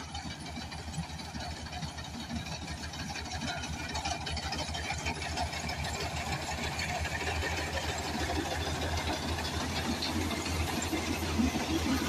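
Fieldking mini combine harvester's diesel engine running steadily while cutting rice, with the clatter of the cutter bar and reel over the drone. It grows gradually louder.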